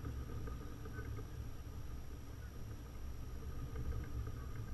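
Outdoor lakeshore ambience: a steady low rumble, with faint short bird chirps now and then.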